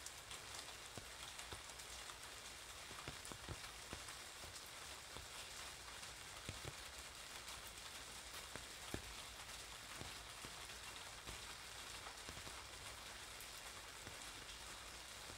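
Steady rain falling on wet pavement, with scattered drops tapping sharply and irregularly on an umbrella overhead.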